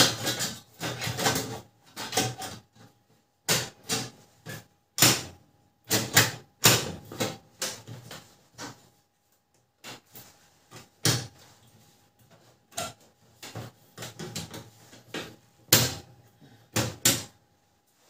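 Irregular plastic clicks and knocks as the casing and cover parts of a Canon LBP 2900 laser printer are handled and fitted back together during reassembly.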